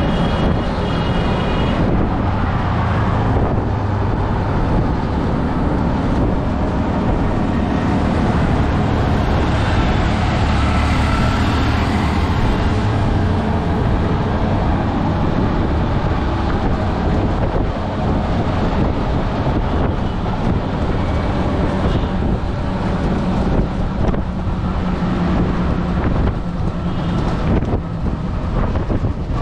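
Riding inside a moving auto-rickshaw: its small engine running under steady road and wind noise, with the rumble of passing traffic.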